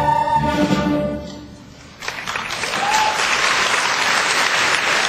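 A choir and orchestra hold the final chord of a stage musical number, which fades away over the first two seconds. A theatre audience then breaks into steady applause, which continues.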